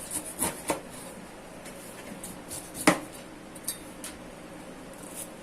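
A knife peeling a pineapple, with a few short sharp knocks; the loudest comes about three seconds in.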